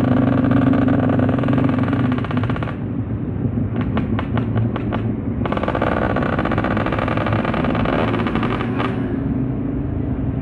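Motorcycle engine running steadily on the move, with a quick run of sharp ticks about four seconds in.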